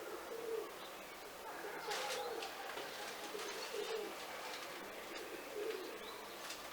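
Birds calling: short, low notes repeating every second or two, with a few faint higher chirps.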